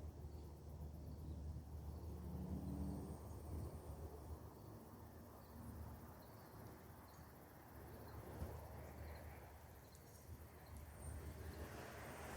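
Quiet outdoor ambience: faint, evenly repeating cricket chirps over a low rumble, with soft rustling toward the end.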